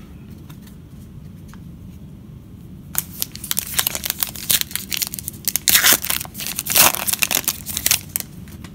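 A Panini Classics football card pack's wrapper crinkling and being torn open: a dense run of sharp crackles and rips that starts about three seconds in and is loudest near the end.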